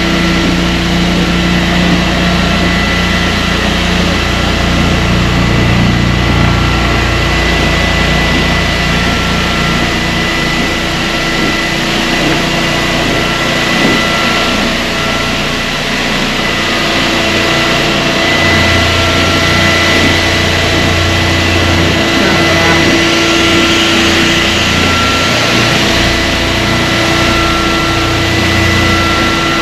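Hyper Grinders Hyper Orbit floor sander running on a pine floor with 80-grit black silicone carbide paper: a loud, steady motor drone with fixed whining tones over a low rumble that rises and falls as the machine is moved.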